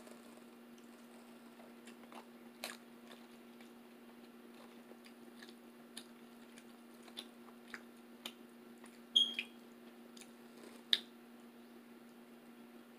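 Close-miked mouth sounds of a person eating soft food by hand: quiet chewing with scattered short, wet clicks and smacks of lips and fingers, about a dozen, over a steady low hum.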